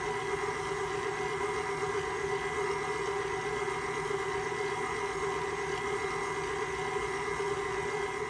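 Electric stand mixer running at a steady speed, its flat beater stirring a thin liquid in a stainless steel bowl: an even motor hum with a steady whine.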